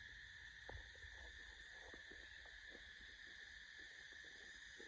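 Faint forest background: a steady, high insect drone, with scattered soft ticks and rustles of leaf litter.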